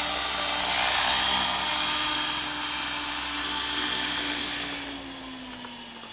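Electric RC helicopter (Align T-Rex 500 with a Scorpion brushless motor) hovering low: a steady high motor whine over the rotor's hum, slowly falling in pitch. About five seconds in the whine fades and the sound drops away as the helicopter is set down in the grass, its rotor winding down.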